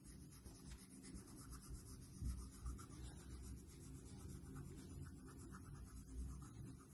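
Faint rubbing of a cotton bud over chalk on paper, blending the chalk sky.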